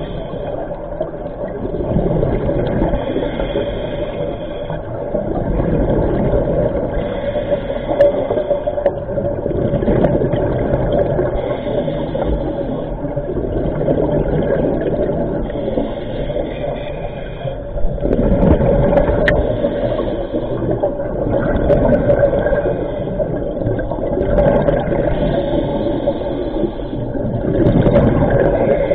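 Scuba diver breathing through a regulator underwater: a hissing inhale and a bubbling exhale about every four seconds, over a steady hum.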